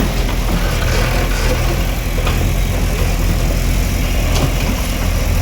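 Bulldozer's heavy engine running steadily at a low, even pitch during demolition work.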